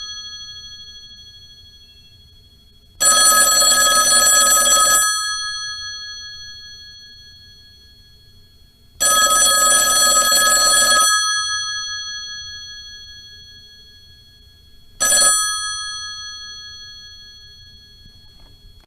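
Old telephone bell ringing in bursts of about two seconds, starting every six seconds, each ring dying away slowly afterward; the last ring is cut short after a moment.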